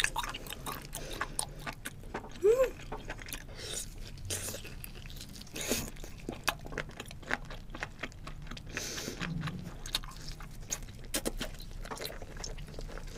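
Close-miked chewing of boiled octopus tentacle: a dense run of wet smacks and clicks. A brief hummed note rises and falls about two and a half seconds in.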